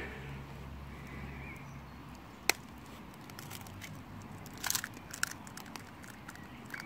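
Eggshell being tapped and cracked: one sharp tap about two and a half seconds in, then a quick cluster of cracking clicks near the five-second mark.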